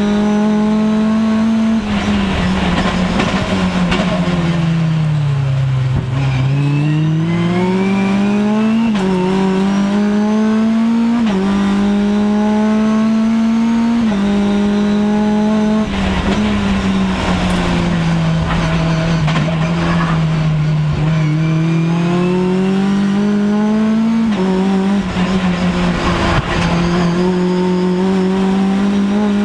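Onboard sound of a Mitjet race car's engine at racing speed. The pitch sinks as the car slows for corners, then climbs again in steps, with a sudden drop at each upshift. Rougher noise comes through in the slow sections.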